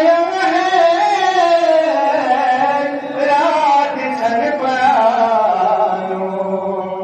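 A man chanting a Balti qasida (devotional poem) in long, wavering melodic phrases, with a long held note near the end.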